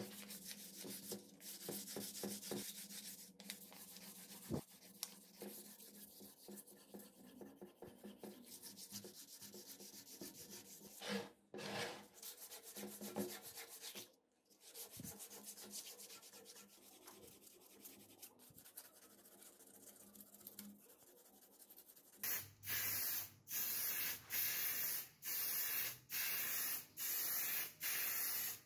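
Sandpaper and a sanding block rubbing back and forth over the coated metal body and bed of an old sewing machine, in irregular scratchy strokes. From about 22 seconds in, an aerosol spray-paint can hisses in short bursts about one a second, louder than the sanding.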